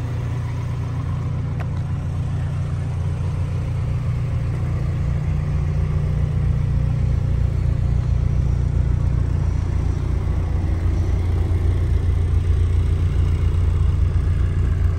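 Honda Civic EG6 SiR hatchback's engine idling steadily with a low, even exhaust drone, growing a little louder toward the end as the rear of the car comes closer.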